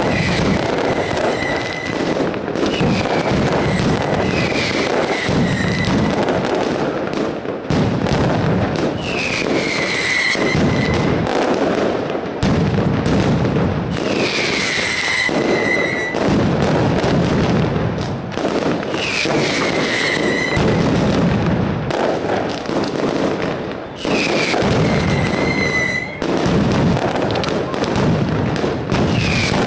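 Mascletà barrage: firecrackers going off in a dense, continuous rattle of bangs. A falling whistle cuts through every few seconds.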